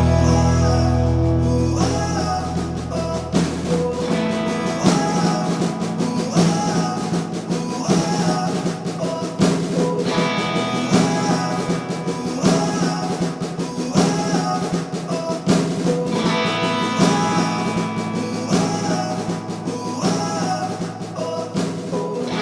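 Background rock music with drums and guitar keeping a steady beat.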